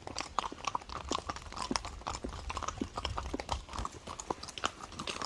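Horse hooves clip-clopping at a walk: a steady run of irregular hoof knocks over a low rumble.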